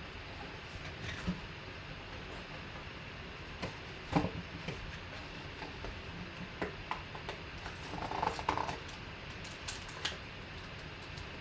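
Plastic shrink wrap crinkling and a cardboard trading-card box being opened by hand: scattered soft crinkles and taps, with a short cluster of rustling a little after the middle, over a steady low hum.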